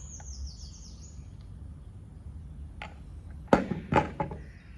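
A small bird's high trill stepping down in pitch, ending about a second in. A few sharp clacks follow about three and a half seconds in, over a steady low hum.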